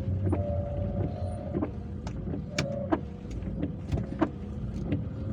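Inside a car driving in heavy rain: steady engine and road rumble, with irregular sharp taps of raindrops on the car and a faint steady whine.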